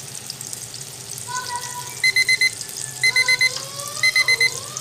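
Digital alarm clock beeping in quick bursts of four, one burst a second, starting about two seconds in, over the steady sizzle of an omelette frying in oil.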